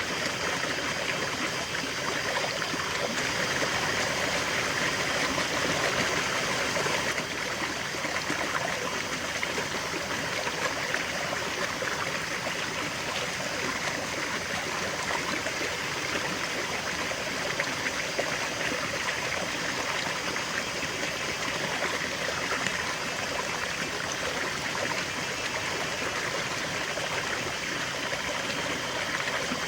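River water flowing steadily over stones, a continuous rushing babble with fine gurgling and splashing texture.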